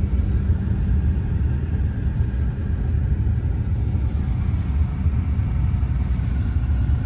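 Steady low engine and road rumble heard inside a moving car's cabin.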